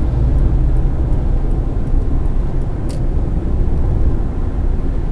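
Steady road and engine rumble of a car at highway speed, about 115 km/h, heard from inside the cabin, with a single short click about three seconds in.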